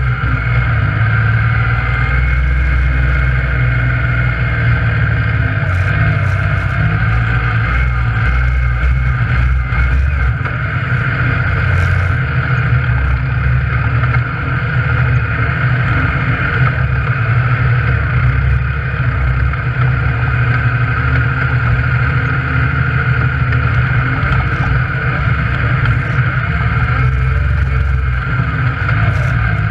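Yamaha YXZ1000R side-by-side's three-cylinder engine running steadily under way, heard from inside the cab, with a steady high whine over the engine note.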